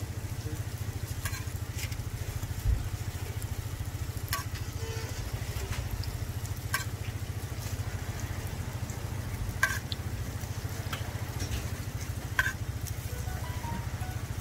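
Hotteok frying in shallow oil on a flat griddle, sizzling steadily over a constant low hum, with a handful of sharp clicks as the metal hotteok press knocks against the griddle.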